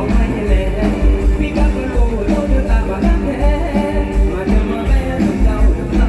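Mor lam band music with a strong, steady bass beat under a singing voice.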